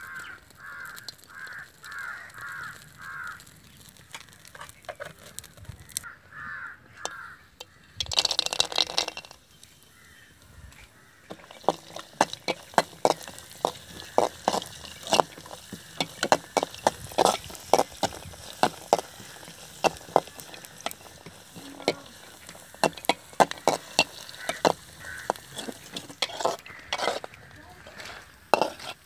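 A metal spoon clatters and scrapes against a blackened kadai with many sharp clicks as cashew nuts and raisins are stirred and fried in ghee. A crow caws repeatedly near the start, and a short loud rush comes about eight seconds in.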